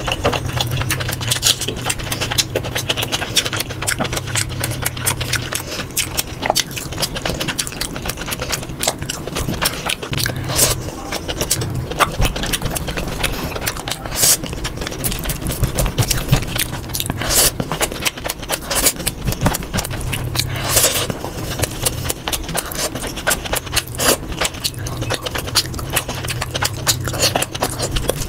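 Close-miked eating sounds played at double speed: rapid wet chewing, lip smacks and clicks as mutton curry and rice are eaten by hand, with squelches of fingers mixing rice into the curry.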